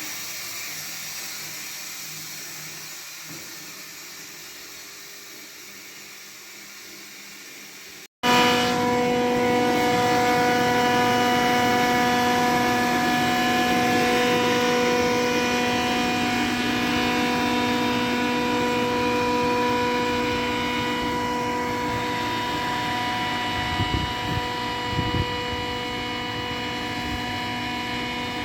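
A soft steady hiss that slowly fades, then after an abrupt cut a loud, steady mechanical drone with a constant pitched hum running through it.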